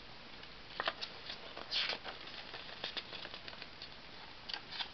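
Thin sheets of paper being handled and lifted off a stack of posters: faint rustling and small taps, with one louder rustle about two seconds in.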